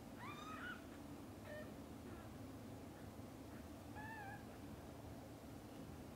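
High-pitched cat meows: a rising mew in the first second, a couple of faint short ones, and a wavering mew about four seconds in.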